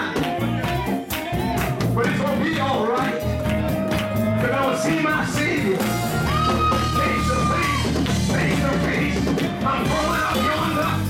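Live church music with a strong bass and a driving drum beat, long held notes and some singing voices.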